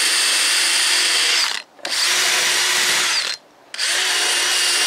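DeWalt Atomic cordless drill spinning an abrasive disc against an aluminum boat hull: a steady high whine over a scratchy grinding noise. The drill stops briefly twice, about one and a half seconds in and again about three and a half seconds in, then spins back up.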